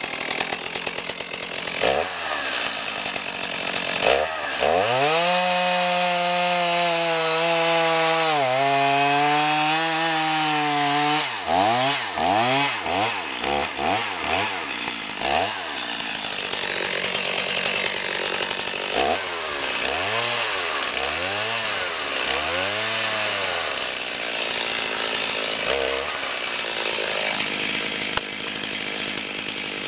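Stihl two-stroke chainsaw revving up about four seconds in and cutting through a log, its chain dull and in need of sharpening. It holds a high pitch under load, then gives a run of quick throttle blips and drops back. A second group of revs comes around twenty seconds in, and it settles to a lower, steady running sound near the end.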